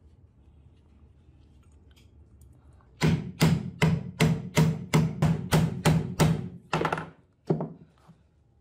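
About a dozen sharp, hollow-ringing knocks on a brass tube, roughly three a second, all at the same pitch, with the last two spaced wider. They begin about three seconds in, as a perforated brass sleeve is knocked down onto the tube to seat it.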